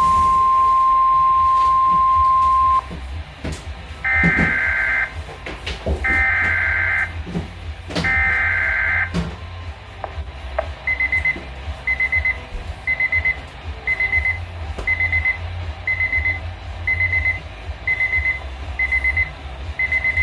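Weather radio alert signals: a steady 1050 Hz warning tone cuts off about three seconds in, then three one-second screeching SAME data bursts a second apart, then short high beeps about once a second from a weather radio receiver's alarm. Scattered crackles run through it.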